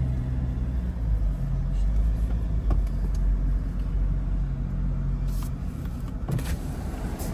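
Ford Ranger pickup driving along, heard from inside the cab: a steady low engine and road rumble, with a few light clicks in the second half.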